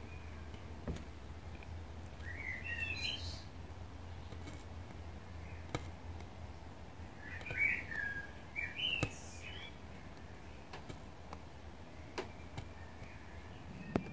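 A bird chirping in two short runs of wavy, rising and falling notes, about two seconds in and again around eight seconds, over a low steady hum. A few faint ticks come between them as a sewing needle pricks through a paper template.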